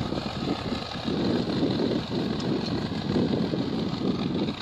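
Swaraj 960 tractor engine running steadily under load while pulling a disc harrow, with wind buffeting the microphone in uneven gusts.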